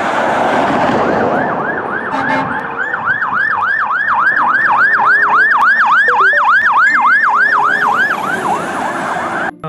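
Electronic siren of a toy fire engine: a fast yelp whose pitch swoops down and back up about three times a second over a hiss, cutting off suddenly near the end.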